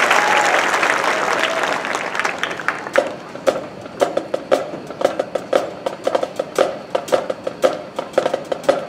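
Crowd applause dying away, then the marching band's percussion setting up a steady beat of sharp clicks and drum hits, about two a second, from about three seconds in.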